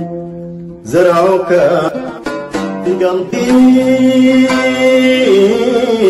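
Oud playing with a man singing: the last plucked notes die away, then about a second in a voice comes in with a rising glide and later holds one long note over the strings.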